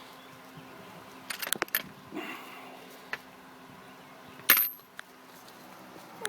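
Metal hand tools clinking: a few light clicks, then one sharp metallic clink with a brief high ring about four and a half seconds in.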